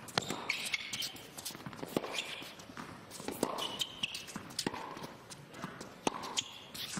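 Tennis ball struck back and forth with rackets in a baseline rally, a sharp pop roughly every one to one and a half seconds. Between shots the players' shoes scuff and squeak on the indoor court.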